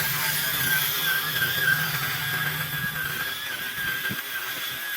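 Lawn edger running with its blade spinning, a steady high-pitched whine. A lower running sound under it fades out about three and a half seconds in while the whine carries on.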